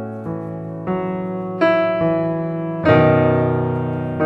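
Background piano music: slow chords struck about once a second, each left to ring and fade, the loudest near the end.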